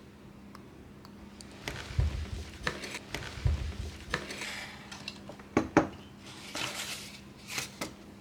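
Noctua NF-A8 fan and its packaging being handled on a table: a scatter of light clicks and knocks, the loudest a pair about five and a half seconds in, with a couple of brief rustles.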